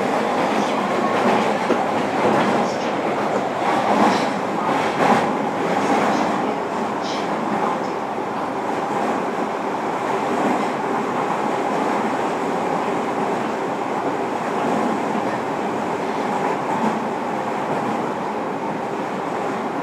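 JR Kyushu 305 series electric train running, heard from inside a motor car: a steady rumble of wheels and running gear with a faint steady tone, and a run of clicks from the rails in the first several seconds.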